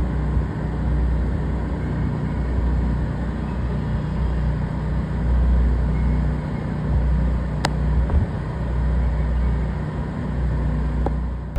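Neighbourhood backup generators running steadily during a power outage: a continuous engine drone with a low hum. A single sharp click about seven and a half seconds in.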